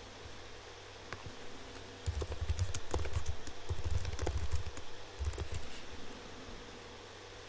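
A run of light clicks and taps over a low rumble, dense for about four seconds starting around two seconds in, with a few scattered clicks either side.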